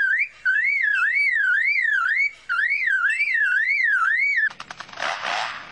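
Lyrebird mimicking a car alarm: a fast, whooping wail that sweeps up and down about three times a second, broken by short pauses. Near the end it switches to a quick rattle of clicks and a harsh rasping sound.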